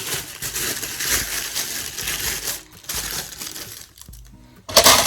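Plastic packaging crinkling as small items are handled and unpacked, with a louder burst of crinkling near the end.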